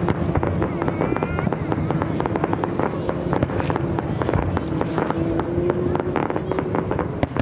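Fireworks display: rapid, dense crackling and popping from bursting aerial shells and a low fountain effect, with a steady low tone running underneath.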